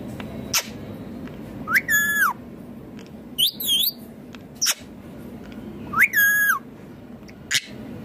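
Indian ringneck parakeet calling: two longer calls, about two seconds in and again about six seconds in, that rise, hold and then drop in pitch. Short, sharp calls come between them, several seconds apart.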